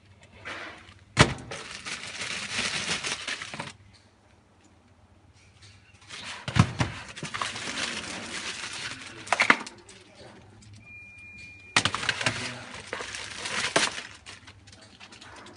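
Clear plastic bags crinkling and rustling as cables are pulled out of them, in three spells of a few seconds each, with a few sharp knocks.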